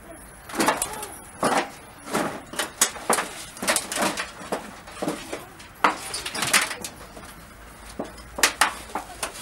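Irregular rustling and scuffing of a heavy blanket being handled and spread over a person lying on the ground, a string of short sharp swishes and scrapes.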